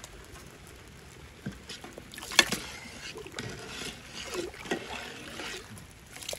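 A long-handled metal ladle stirring rice through boiling water in a large metal pot, with sloshing and splashing. There is a sharp clink of the ladle on the pot about two and a half seconds in.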